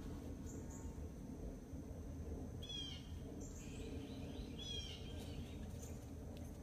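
Steady low background hum with short bird chirps, twice: about three seconds in and again a couple of seconds later.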